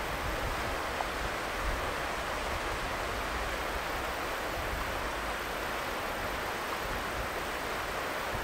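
Boeing 737-700's CFM56-7B jet engines at taxi idle, heard from a distance as a steady rushing roar, with an uneven low rumble underneath.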